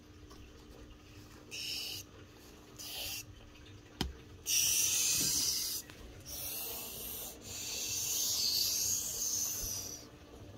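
Plush toys rustling and rubbing against each other and the fabric sides of a storage bin as a hand rummages in and grabs one, in several scratchy bursts that get longer in the second half. A single sharp click about four seconds in.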